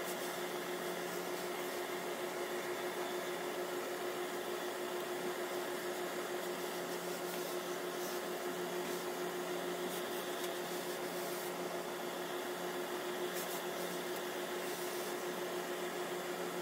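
Steady hum of running pressing equipment with a constant tone over a hiss, with a few faint short hisses above it while a hose-fed industrial steam iron presses a suit sleeve.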